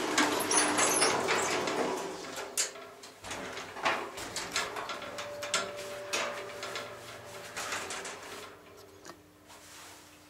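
Passenger elevator: rustling and knocks in the first two seconds, then scattered sharp clicks and a faint steady hum as the car travels, growing quieter toward the end.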